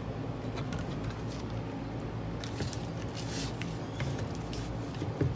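Small clicks and rustling of an aquarium light and its stand being handled and fitted together, over a steady low hum, with a rustling stretch in the middle and one sharp click near the end.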